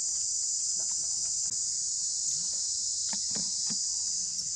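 Steady, high-pitched insect chorus buzzing without a break, with a few faint clicks about three seconds in.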